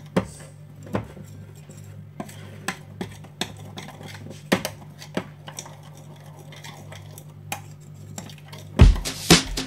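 Thin metal spoon stirring pancake batter in a ceramic bowl, clinking against the side of the bowl at irregular intervals, over a steady low hum. Loud music comes in near the end.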